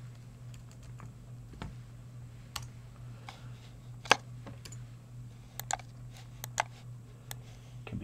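Computer keyboard keystrokes, scattered and irregular, the loudest about four seconds in, over a steady low hum.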